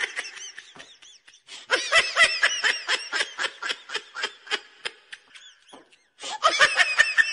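High-pitched laughter in three bouts of quick, rapid pulses, the longest running about four seconds in the middle.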